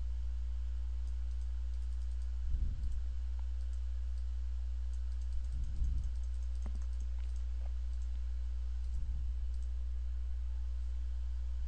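A steady low electrical hum, with a few faint computer mouse clicks clustered around the middle and soft low bumps about every three seconds.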